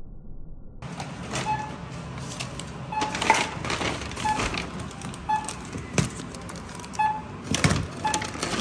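Checkout barcode scanner giving short single-pitch beeps about once a second as items are scanned, with the rustle of a shopping bag being packed and goods knocking on the counter.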